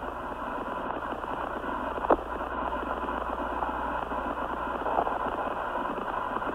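Steady radio static hiss on the Apollo 11 space-to-ground voice link between transmissions, with a single click about two seconds in.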